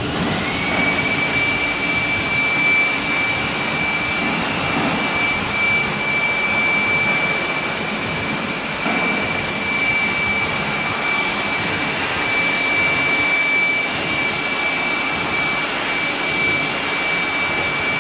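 Bhagwansons CG-100 centerless grinder running: a steady, loud mechanical whirr with a high, steady whine that climbs into pitch right at the start and then holds.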